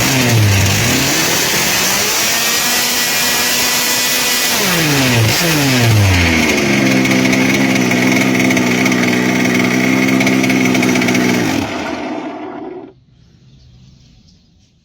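Two-cylinder two-stroke petrol engine of a radio-controlled long-tail boat running hard and revving: its pitch dips and climbs a couple of times, holds high and steady for about five seconds, then drops and cuts off about thirteen seconds in.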